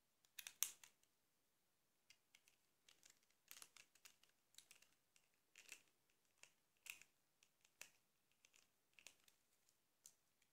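Small sharp plastic clicks and taps from a screwdriver working at a Nokia 1100's plastic housing parts during disassembly, irregular, with the loudest cluster about half a second in.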